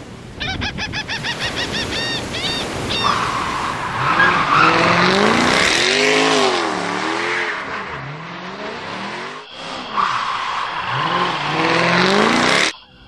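Sound effects: a quick run of gull calls over surf, then racing cars passing with engines rising and falling in pitch and tyres squealing. The sound cuts off suddenly near the end.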